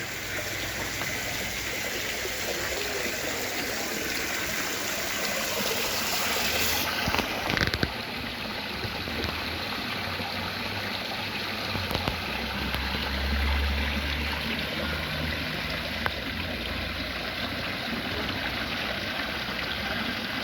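Steady rushing of running water, like a stream, with the brighter top end dropping away about seven seconds in.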